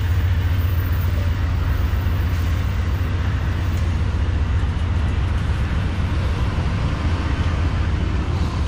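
Amtrak diesel locomotive running while standing at the platform: a steady, loud low rumble with an even mechanical noise over it.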